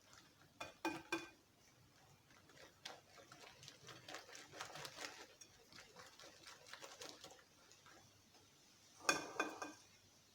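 Egg and vegetable mixture being stirred in a bowl with a utensil. A few ringing knocks of the utensil against the bowl come near the start, then a run of quick clicking strokes in the middle, then a couple of louder ringing taps near the end.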